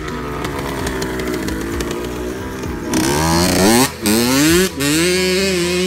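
Pit bike engine running, then revving up hard about three seconds in. The pitch climbs and breaks off twice with short dips before rising again.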